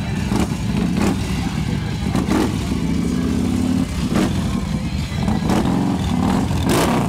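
Cruiser motorcycle engine running at idle close by: a loud, steady low rumble with a few short sharp sounds over it.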